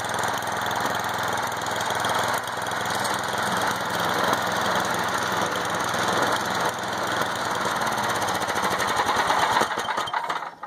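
Small single-cylinder engine of a Snapper 8/24 two-stage snowthrower running steadily at a constant speed, cutting off just before the end.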